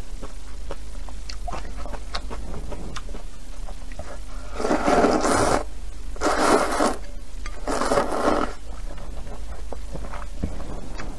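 A person slurping rice noodles from a bowl of soup: three long slurps about halfway through, with small clicks between them.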